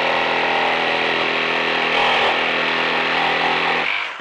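Makita 36-volt (twin 18-volt battery) cordless reciprocating saw running flat out, its blade sawing through a thick timber beam with nails driven into it. It runs steadily under load and stops suddenly near the end as the blade breaks through and the trigger is released.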